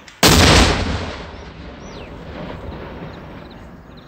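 A single loud blast from a rocket-launcher round on a firing range, hard enough to overload the microphone. It is followed by a rolling echo that fades away over about two seconds.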